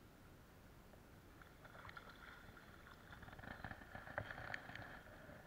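Faint water splashing and sloshing as a hooked fish thrashes at the surface and is brought to a landing net. It starts about a second and a half in and is busiest near the end.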